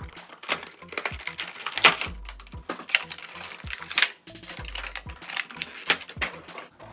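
Packaging being handled as a Funko Pop cardboard window box is opened and the figure is pulled from its clear plastic packaging. It makes a run of sharp clicks and crinkling crackles.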